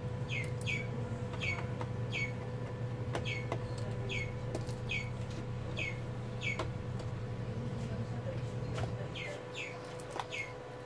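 A bird chirping over and over, short falling chirps about every half to one second with a pause of a couple of seconds past the middle, over a steady low hum and a few faint clicks.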